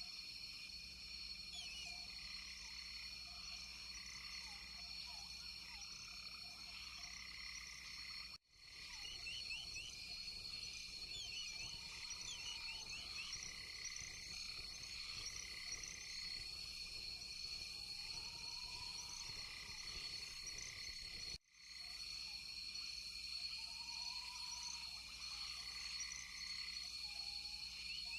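A chorus of frogs calling: a steady high trilling with many short, quickly repeated chirps over it. Lower, arched calls join about two-thirds of the way in. Twice the whole sound cuts out for a moment.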